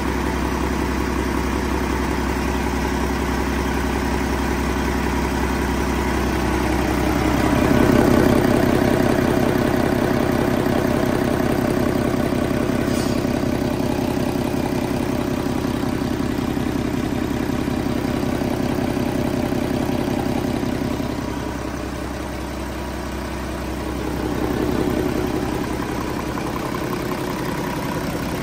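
2019 PACCAR MX13 12.9-litre inline-six diesel engine idling steadily on an engine stand, out of the truck. It gets louder for a few seconds about eight seconds in and again near the end.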